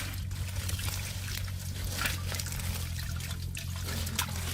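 Shallow water sloshing and trickling in irregular small splashes as hands grope through it searching for fish, over a steady low hum.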